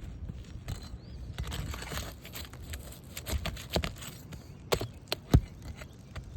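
Roofing hand work on asphalt shingles: a scraping stretch, then a series of sharp metal clicks and taps as a shingle is lifted and its nails are pried out, with three loud clicks near the end.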